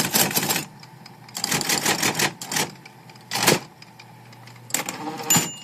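A 1971 IBM electric typewriter being typed on: quick runs of mechanical key strikes, then a few heavier single strokes, over the steady hum of its running motor.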